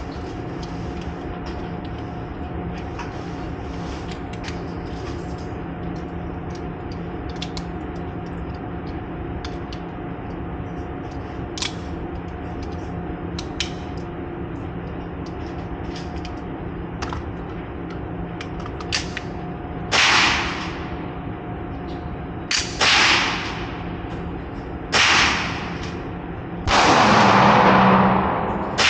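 Gunshots at a shooting range over a steady background hum: a single shot about two-thirds of the way in, then a close pair, another shot, and a quick string of shots near the end, each with an echoing tail.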